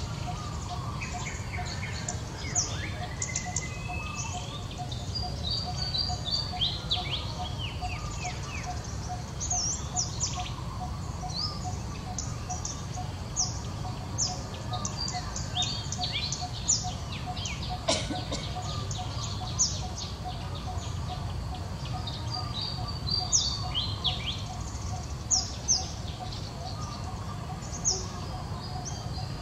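Birds chirping: many short, sharp high calls scattered throughout, over a steady, fast, even pulsing and a low rumble.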